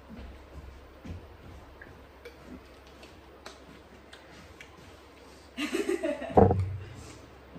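Faint scattered clicks and taps, then about six seconds in a short voice-like sound followed at once by a loud thump.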